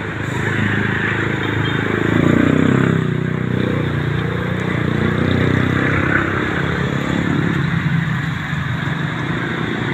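A motor vehicle engine running, swelling and shifting in pitch about two to three seconds in, then carrying on steadily.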